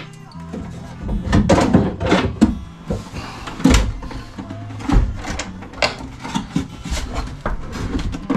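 An old marine inverter's boxy case being lifted out of a floor compartment: a run of irregular knocks and clunks as it bumps against the edges of the opening and is handled, with its wiring dragging.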